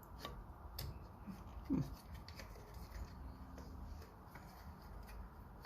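Faint handling sounds of a mitre saw's dust-cuff parts being felt and fitted by hand: scattered small clicks and taps, with one short squeak falling in pitch about two seconds in.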